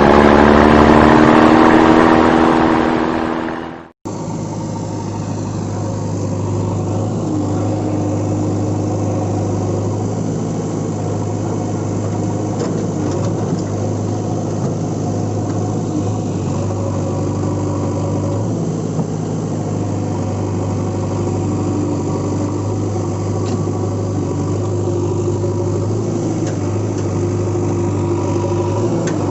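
A motor vehicle engine running loudly, its pitch sliding down at first, then cut off abruptly about four seconds in. After the cut, an engine runs steadily at idle.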